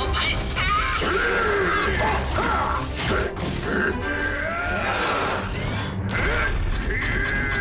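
Action soundtrack music mixed with animated robot sound effects: mechanical clanks and whirs, with short gliding tones and a few impacts.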